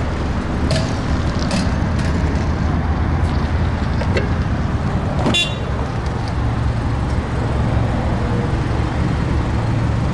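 Steady low outdoor rumble of traffic, with light clicks as a car's fuel filler door is pushed shut about a second in, and a short sharp sound about five seconds in.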